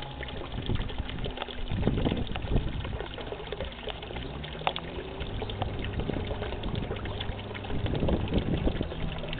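Small pond fountain splashing and trickling steadily into the water, with a low steady hum underneath.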